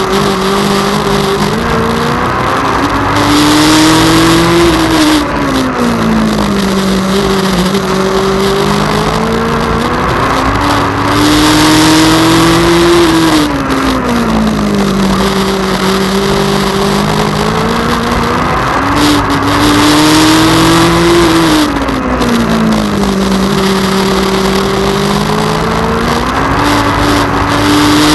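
Legend race car's Yamaha motorcycle engine at racing speed, heard from on board. Its pitch climbs for about four seconds on each straight, drops as the driver lifts for the turn and holds low through it, three times over, with the fourth climb starting near the end.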